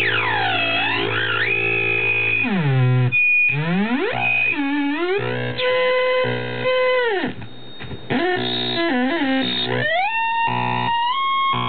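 Homemade 40106 hex Schmitt-trigger oscillator box making harsh electronic square-wave tones. A steady low buzz sits under high squealing tones that swoop down and back up. The tones then jump between pitches, warble quickly and cut in and out abruptly as the knobs are turned.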